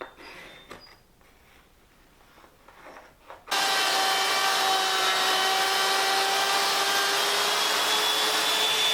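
A power tool switches on suddenly about three and a half seconds in and runs steadily with a loud, even whine; the high note sags slightly near the end.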